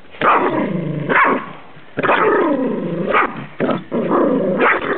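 Small chihuahua-mix dog growling and barking in play, several rough, pitched growl-barks of a second or so each with short breaks between.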